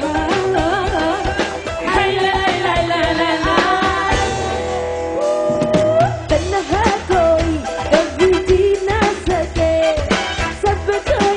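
A live band playing a Bollywood pop song, with a sung melody over drums and bass.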